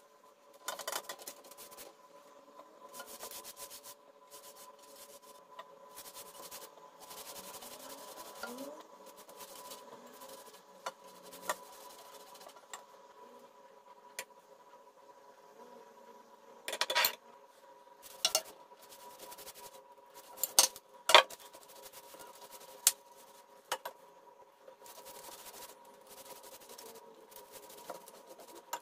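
Baking paper and sheets of filo pastry rustling as they are spread by hand in a metal baking tray. A few sharp clinks and taps of kitchen utensils come in the middle stretch, over a faint steady hum.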